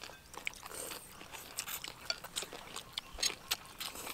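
Several people eating noodles with chopsticks: irregular short clicks of chopsticks against bowls and plates, mixed with chewing, a few louder clicks about three seconds in.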